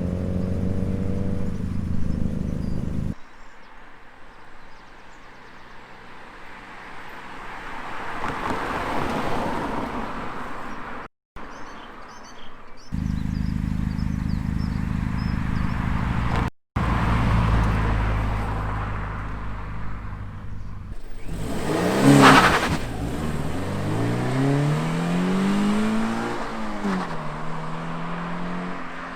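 Toyota GT86's 2.0-litre flat-four boxer engine heard through its exhaust in a series of cut-together clips, the stock exhaust against the aftermarket MXP Comp RS. It idles steadily, then gives a loud sharp blip of the throttle about two-thirds of the way in, followed by revs rising and falling.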